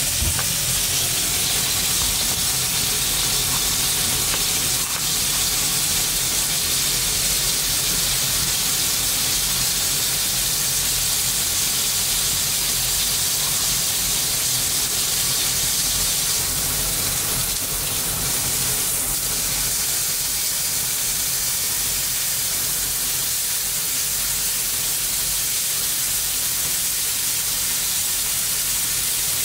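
Lean red-meat steak searing in oil in an iron frying pan: a steady, high sizzling hiss, with a low hum running underneath.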